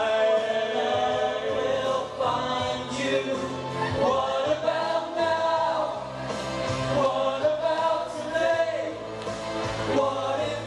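Several voices singing a pop song together in harmony through handheld stage microphones.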